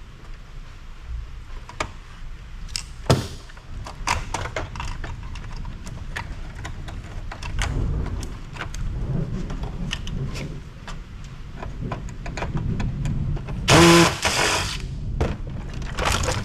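Hand-dismantling a stereo power amplifier: scattered clicks, knocks and rattles of tools and metal parts as boards are worked loose from the chassis, with a brief loud pitched screech near the end.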